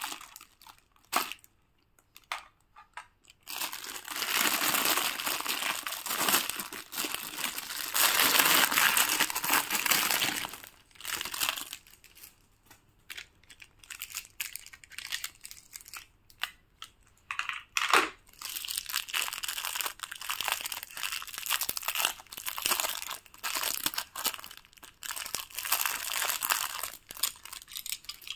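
Packaging being handled and torn open: crinkling and tearing in long bouts, with sharp clicks in between and short pauses.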